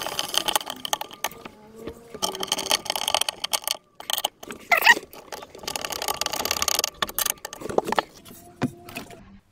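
Rattling and scraping of a concealed metal cabinet hinge and a hand tool as a vanity cupboard door is fitted and adjusted, in bursts with short pauses and a few clicks. A brief squeak near the middle.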